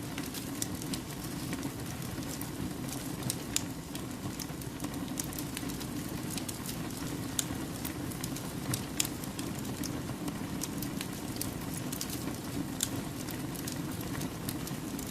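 Wood campfire burning: a steady low rush from the flames with many sharp crackles and pops from the burning logs scattered throughout.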